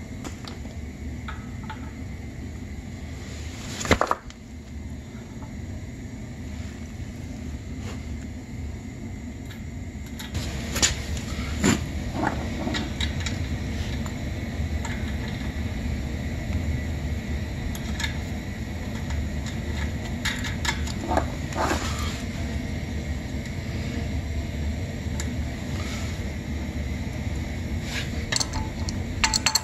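Metal clinks and knocks of brass compressor drain fittings being handled and fitted together by hand, a scattered handful of clicks with the loudest about four seconds in, over a steady low hum.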